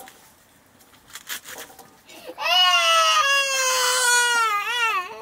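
A young child crying in one long, wavering wail that starts about two seconds in and slowly falls in pitch. Before it come a few faint clicks of greens being handled in a bowl of water.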